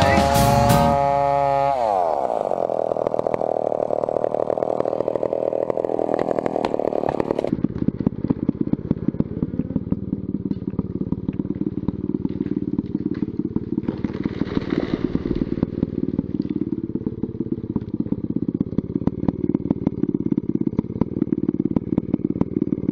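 A vintage McCulloch two-stroke chainsaw running at a steady fast-pulsing idle, revved up briefly about halfway through. It is preceded by a falling whine and a few seconds of rushing noise.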